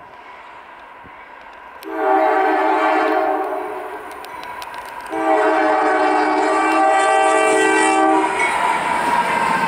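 Lead GE AC44C6M diesel locomotive's multi-chime air horn sounding two blasts: one about two seconds in, and a longer one from about five to eight seconds. Near the end the locomotive passes close with a loud, steady rush of engine and wheel noise.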